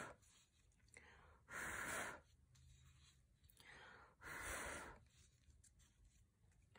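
Two short puffs of breath blown by mouth across wet acrylic pour paint on a tile, about three seconds apart, each under a second long. The blowing spreads the paint and sets off the cell activator so that cells form.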